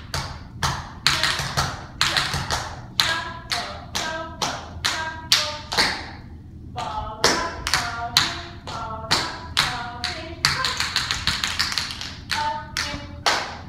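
Tap shoes of two dancers striking a hard floor in a tap routine: sharp metallic clicks, each with a brief ring, in an uneven rhythm, with a fast run of taps near the end.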